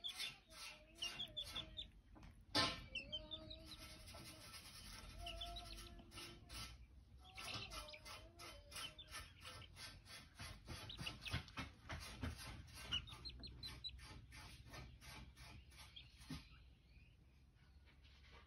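A baby chick peeping in short, high calls now and then, over soft rustling and small clicks as it nestles against the kittens' fur. A sharp knock about two and a half seconds in is the loudest sound.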